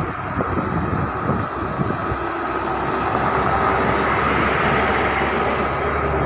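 Heavy vehicle's diesel engine labouring up a steep grade, growing louder as it approaches, with a steady high whine over the rumble.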